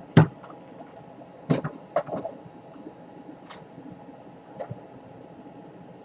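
Hard objects being handled on a work surface: a few sharp clicks and knocks. The loudest is just after the start, a cluster follows around two seconds in, and single lighter clicks come later.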